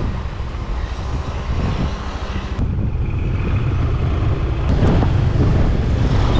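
Motor scooter being ridden along a road: the small engine running under heavy wind buffeting on the microphone.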